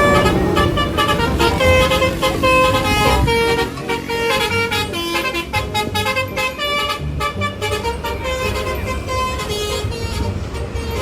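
Bus "telolet" musical horn: multi-tone air horns playing a quick tune of short, changing notes over the bus engine running.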